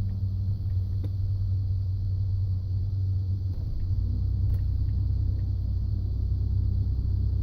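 Ford F-150 pickup running, a steady low drone that comes in at the start and drops lower about four seconds in, with a few faint clicks.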